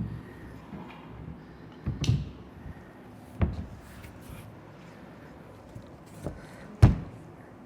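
Wooden knocks and bumps as an internal door is handled and wedged: four separate knocks, the loudest near the end.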